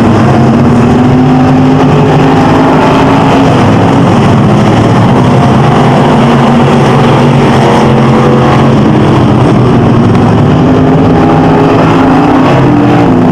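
Several dirt-track stock car engines running at race speed, loud, their pitch rising and falling as the cars pass and work around the oval.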